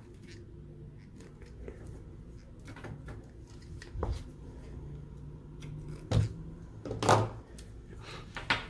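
Faint snips and clicks of a cutting tool trimming the braided shield wires of a coaxial cable, with a few louder handling knocks about four, six and seven seconds in.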